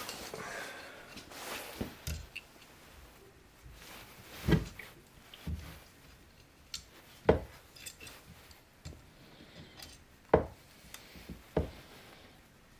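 Tools and metal chainsaw parts being handled during disassembly: scattered clinks and knocks, four of them sharper than the rest, with quiet stretches between.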